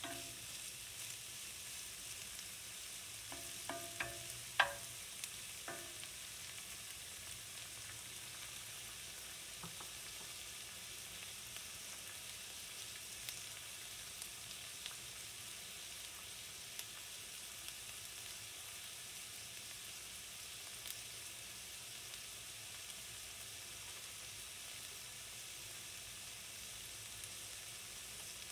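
Sliced onions frying gently in olive oil in a white enamelled pan: a steady soft sizzle with scattered small pops. A few knocks come about four to five seconds in.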